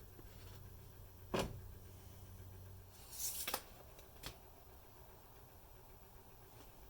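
A few light knocks and clicks from handling parts under the hood, one sharper knock early on and a quick cluster of clicks in the middle, against a faint low hum that stops about three seconds in.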